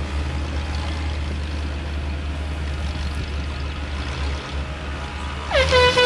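Side-by-side UTV engine running as it comes down a rocky hill trail, a low steady rumble. Near the end a short pitched tone rises and then holds briefly, the loudest sound here.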